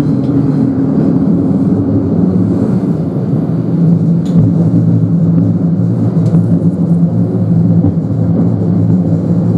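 Cabin noise of a Thameslink Class 700 electric multiple unit under way: a steady rumble of running gear with a low hum, and a couple of faint clicks near the middle.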